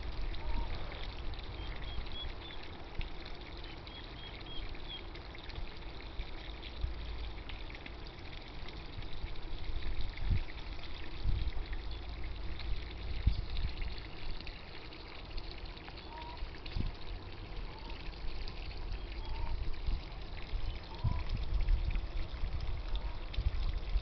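Water trickling steadily into a small rock-edged garden pond, with a few short, faint bird chirps and calls over it.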